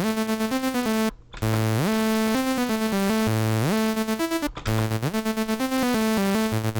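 Software synthesizer playing a bright, buzzy melodic line with notes that glide up and down between pitches and fast repeated notes, cutting out briefly about a second in and again midway as the phrase repeats.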